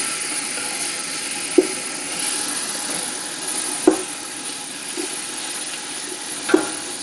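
Turkey bacon sizzling as it browns in an enamelled pot, with a steady hiss. A wooden spatula stirs it, knocking against the pot four times.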